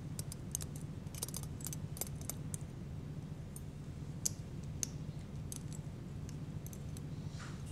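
Steel surgical instruments, needle holder and forceps, clicking and ticking lightly while a suture is placed: scattered sharp clicks, several a second in clusters, over a steady low hum.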